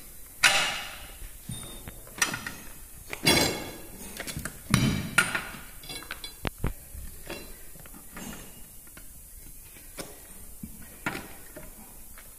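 Steel tyre spatula clanking and scraping against the steel rim of an 18.4-26 tractor tyre as the bead is levered on. About five loud metal knocks with ringing come in the first half, then lighter taps and clicks.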